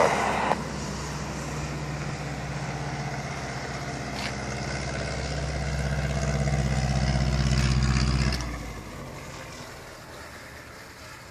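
An engine running steadily at an unchanging pitch, growing louder until about eight seconds in, then dropping away sharply and fading.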